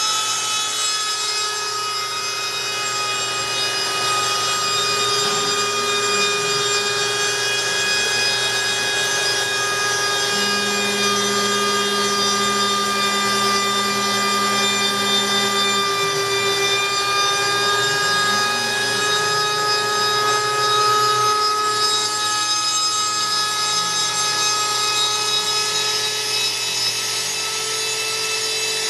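Homemade CNC router cutting carbon fiber sheet: the spindle runs with a steady whine over a rough, rasping cutting hiss. The stepper motors' tones glide up and down as the axes speed up and slow down, and a lower steady tone joins for several seconds in the middle.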